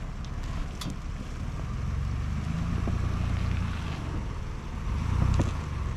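Ford Bronco Badlands engine running at low crawling speed as the SUV climbs over rocks, pulling harder in the middle and again near the end, with wind on the microphone.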